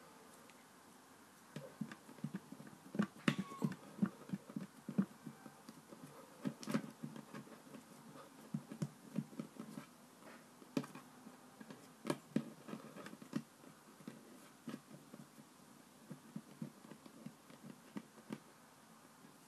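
Hands rolling and pressing play dough flat on a wooden tabletop: irregular soft thumps and pats, with a few sharper taps among them.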